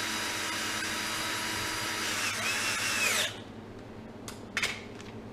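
Handheld power drill running for about three seconds, its pitch rising and falling briefly just before it stops suddenly, followed by two short clicks.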